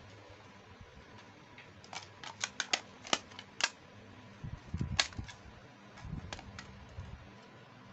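Small hard plastic toy makeup pieces and cases being handled, giving a run of sharp clicks and taps, about a dozen in all, with a few soft low knocks around the middle.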